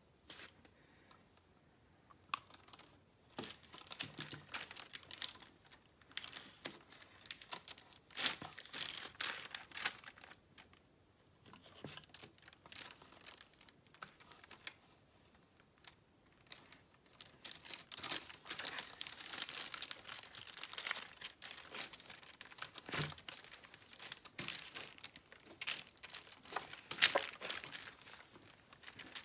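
Hands kneading and folding a sticky glue slime on a paper sheet: irregular sticky crackling and crinkling in uneven spells, busiest in the second half.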